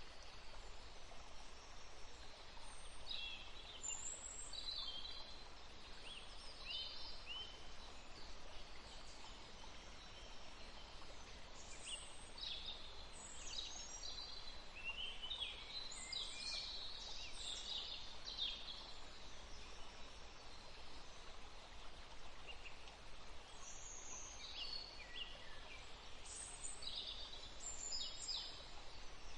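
Small forest birds chirping and trilling in quick, high notes, several calls overlapping, busiest in the middle and again near the end, over a steady background hiss.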